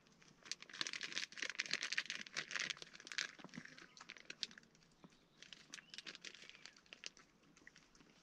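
A plastic food packet crinkling as it is handled: a dense run of crackles for the first few seconds, then a sparser run in the second half.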